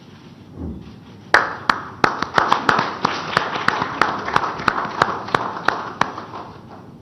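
Audience applause, starting suddenly just over a second in and dying away near the end, with sharp loud clicks standing out above it about three times a second.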